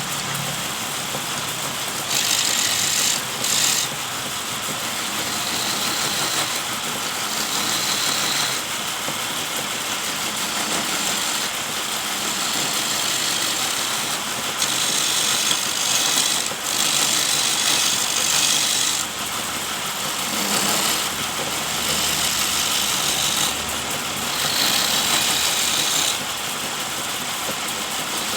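Homemade wood lathe driven by an electric motor, running steadily, with several louder hissing stretches of one to a few seconds each.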